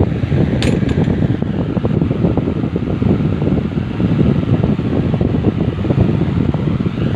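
Steady, loud low rushing noise of moving air on the microphone, with one light click about half a second in.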